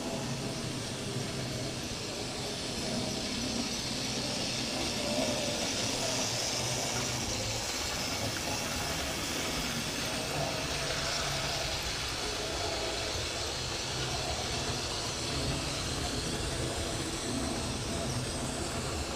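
Analogue model railway locomotives running on the track. Their small electric motors and wheels make a steady, unbroken running noise.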